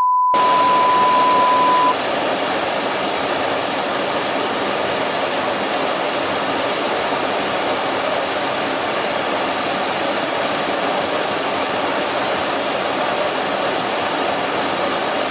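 Loud, steady hiss of static-like noise that switches on and off abruptly, with a two-second beep tone at the start: an edited-in sound effect.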